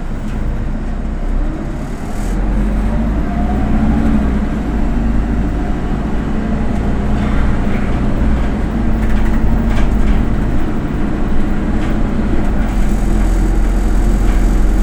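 Autosan Sancity M09LE city bus heard from inside the cabin, its engine and drivetrain running with a steady low rumble. It gets louder about two seconds in, and a whine rises in pitch a few seconds in as the bus accelerates.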